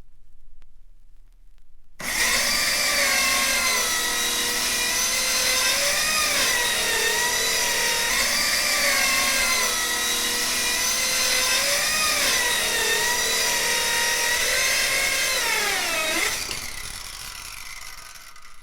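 Electric power tool running: a loud motor whine that starts suddenly, with a pitch that keeps sagging and recovering as if under load. Near the end the pitch drops away sharply and the sound fades out.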